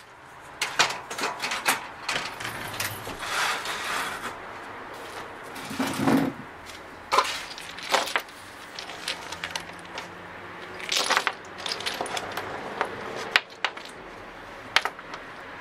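Small hard lottery tokens clicking and clacking against each other and the wooden tabletop as they are scooped up by hand and dropped into a cloth bag, with the cloth rustling between the clicks.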